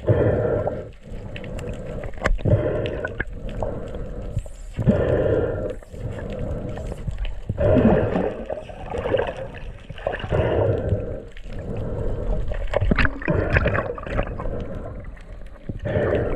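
Muffled underwater rush and gurgle of water over a freediver's camera as she kicks with long freediving fins, swelling and fading about every two and a half seconds.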